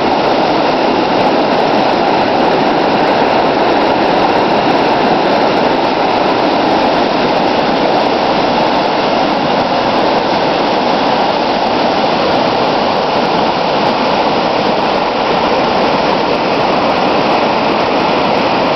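Brook in flood, muddy water rushing out of a concrete culvert and over a footpath: a loud, steady rush of fast-moving floodwater.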